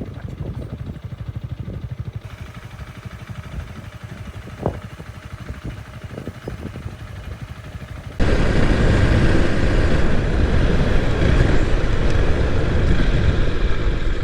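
Honda Rebel 250's single-cylinder engine running under way with a steady low pulsing. About eight seconds in the sound jumps abruptly much louder, to a dense rush of noise over the engine.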